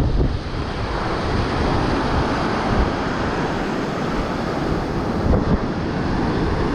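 Waves breaking on the shore in a steady rush, with wind buffeting the microphone.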